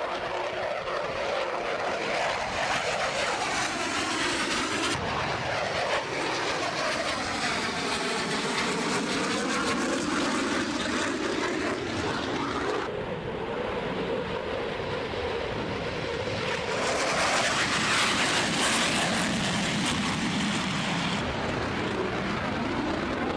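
Fighter jet engines, F-16 Fighting Falcons among them, heard in flight as the jets pass and climb away: a steady rush of jet noise that changes abruptly several times as one pass gives way to another.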